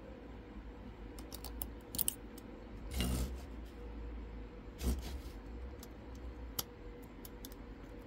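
Lock pick and tension wrench working in the keyway of an ABS Avocet euro cylinder lock: scattered small metallic clicks and ticks. Two louder rustling bumps from handling come about three and five seconds in.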